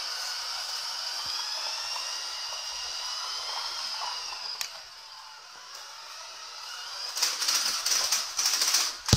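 Toy RC truck's electric motor and gearbox whining, the pitch wavering as it tows a plastic tub across a tiled floor. From about seven seconds in, a loud stuttering rattle takes over, coming and going in short bursts.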